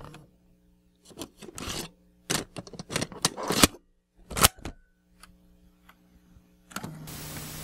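Glitch and TV-static sound effects: a run of short scratchy, crackling bursts over a faint hum, then a steady static hiss setting in near the end.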